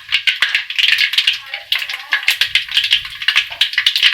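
Mustard seeds, fenugreek and urad dal spluttering in hot sesame oil: a dense, irregular run of sharp pops, the crackle of a tempering reaching its peak.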